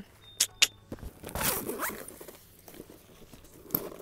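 A zipper on a soft-sided tackle bag being pulled open: two sharp clicks near the start, then the zip running for under a second.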